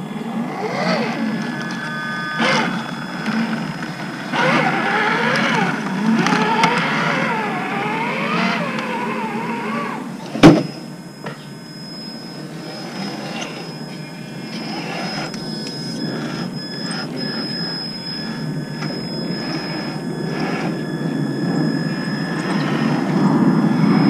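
Traxxas TRX-4 RC crawlers running on 3S, their electric motors and geared drivetrains whining, with the pitch rising and falling with the throttle. A single sharp knock comes about ten seconds in, and the drive sound grows louder near the end as one truck comes up close.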